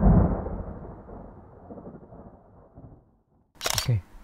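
Thunder rumbling, fading away over about three seconds, used as a sound effect. A short loud burst of noise comes near the end.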